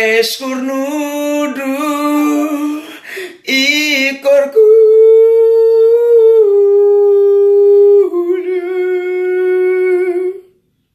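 A man singing unaccompanied, with no clear words. He runs through a few short notes, then holds one long high note that steps down in pitch twice and wavers in the last couple of seconds before stopping.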